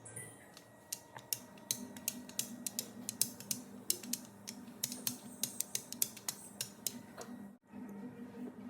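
Rapid, irregular clicking and light tapping, about four clicks a second, like kitchen utensils working against a pan or bowl, over a faint steady hum. It breaks off abruptly about seven and a half seconds in.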